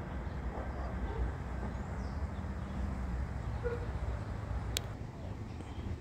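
Outdoor background: a steady low rumble with a few faint bird chirps, and one short sharp click about five seconds in.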